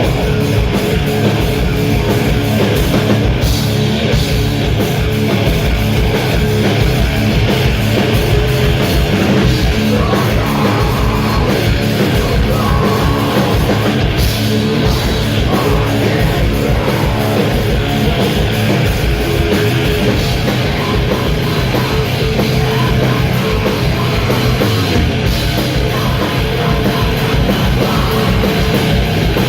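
Sludge metal band playing live at full volume: heavily distorted electric guitars and bass over fast, steady drumming, recorded from the crowd.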